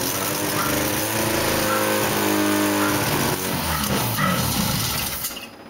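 Turbocharged Mazda RX-7 six-port 13B rotary engine running on its first start-up. It shuts off near the end.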